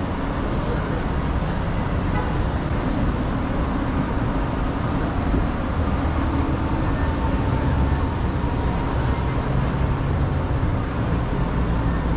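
Steady city traffic noise: a low rumble of passing vehicles and engine drone.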